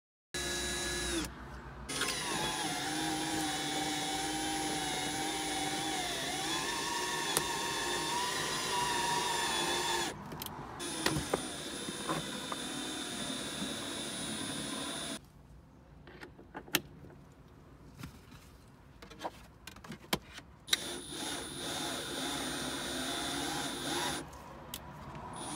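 Cordless drill turning the spindle of an Orange Bat windshield-removal winder, reeling in the cutting line to cut through the windshield's urethane. The motor runs steadily for about ten seconds with its pitch dipping briefly partway, runs on more quietly, stops for several seconds with a few clicks of handling, and runs again briefly near the end.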